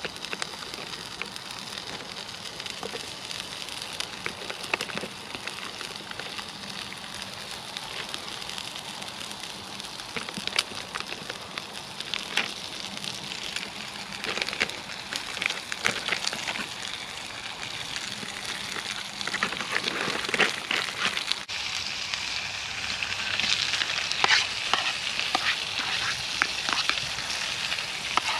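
Food sizzling and spitting in a frying pan, a steady hiss with many small pops. It grows louder and busier about two-thirds of the way through.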